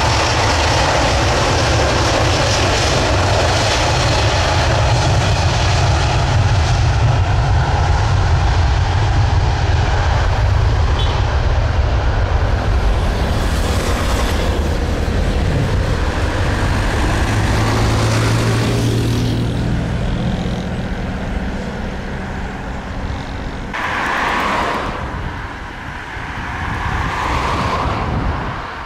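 Jet airliner's engines running loud, with a deep steady roar. In the second half the sound eases off and its tones glide as the aircraft moves away, with a couple of swells near the end.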